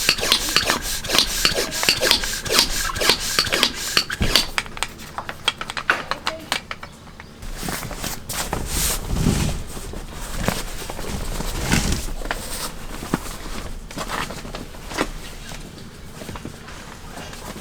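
Quick back-and-forth rasping or rubbing strokes, several a second, that stop about four seconds in, followed by quieter, scattered rubbing and handling sounds with a few dull thuds.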